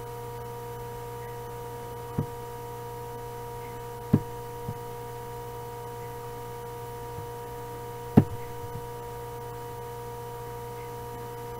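Steady electrical hum from the recording setup, made up of several constant tones. Three short sharp knocks or clicks come through it, about two, four and eight seconds in; the last is the loudest.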